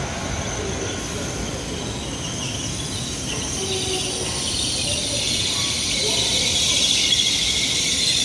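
N700S Shinkansen train coming to a stop at the platform: a steady high hiss over a low rumble that grows louder toward the end.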